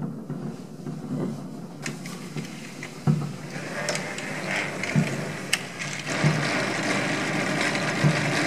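Fireworks over the bay heard from a distance: dull booms every second or two, and from about three seconds in a dense, rapid crackling that grows louder.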